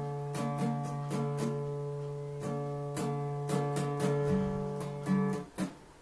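Acoustic guitar strummed and plucked at an irregular pace over a held chord, the low notes changing about four seconds in before the playing stops near the end.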